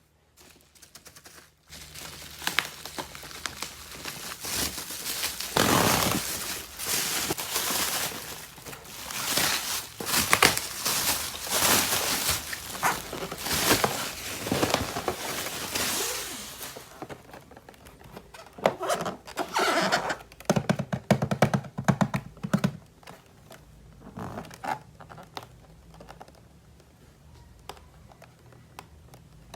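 Hands unboxing and handling toy pieces and packaging: about fifteen seconds of dense rustling, clicks, scrapes and light knocks, then sparser bursts of handling before it quiets.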